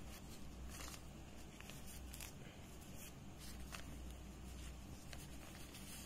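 Faint rustling and light scraping as fibrous PM2.5 mask filter sheets are handled and shuffled by hand, with a few soft clicks over a low steady hum.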